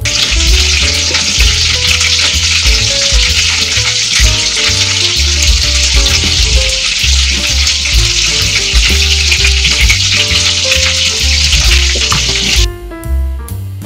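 A steady, crackly sizzling hiss like food frying, over background music with a walking bass line; the sizzle cuts off abruptly near the end, leaving only the music.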